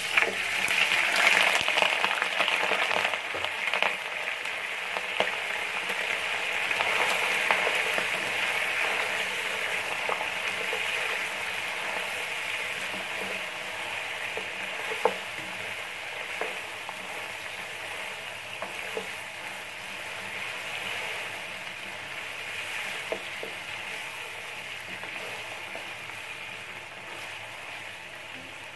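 Chunks of boiled, softened beef frying in hot oil in a karahi: a loud sizzle as they go in that slowly dies down, with an occasional sharp tick from the stirring spoon.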